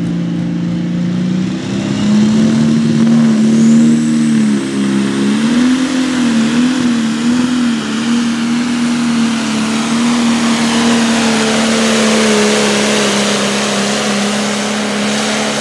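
Pro Stock pulling tractor's turbocharged diesel engine running loud at high revs under load. The pitch steps up about a second and a half in, wobbles up and down a few times, then holds steady before cutting off suddenly at the end.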